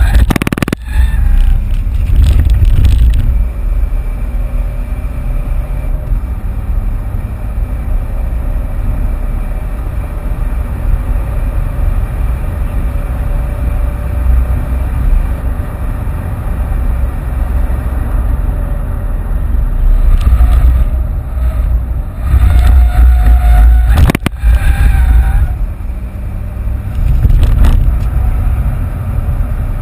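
Ford Fiesta's 1.6 TDCi four-cylinder turbodiesel and road noise heard inside the cabin while driven hard, with a heavy low rumble and the engine note slowly rising and falling through the gears. A sharp knock near the start and another about 24 seconds in.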